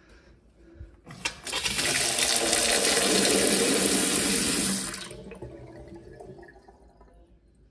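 Kitchen tap turned on, water running in a steady stream into a ceramic sink for about three and a half seconds, then shut off, leaving a fading trickle as the sink drains. The tap is being run to test a freshly fitted replacement cartridge for leaks.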